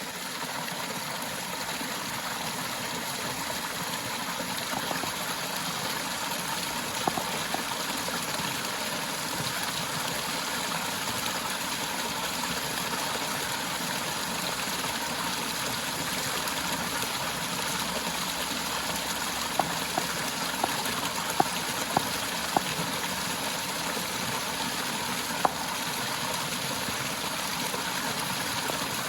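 Waterfall: a steady rush of falling water, with a few brief sharp ticks over it, two of them about seven seconds in and a cluster later on.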